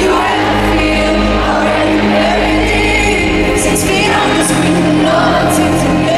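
Live pop music in an arena: a woman sings a melody into a microphone over sustained backing chords, heard from the audience with the hall's echo.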